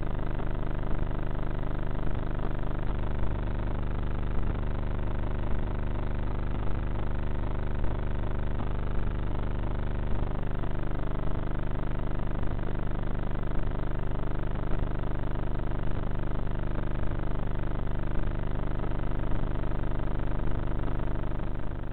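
Steady hum made of many level tones, with a small sharp tick about once a second, picked up by the onboard FPV camera of a Bixler model plane; the sound is cut off above the mid-treble.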